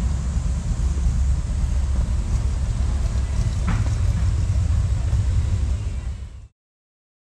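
A steady low rumble that cuts off suddenly about six and a half seconds in.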